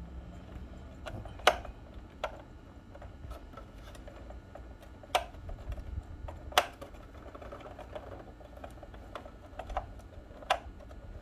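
Scattered sharp clicks and taps, about six spread irregularly, from a screwdriver and small parts working on a water ionizer being taken apart.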